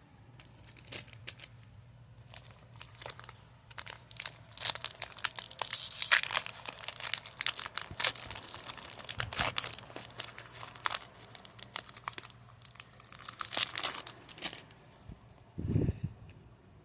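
Foil wrapper of a Pokémon trading-card booster pack being torn open and crinkled, with irregular crackling and ripping for about fourteen seconds. A soft dull thump comes near the end.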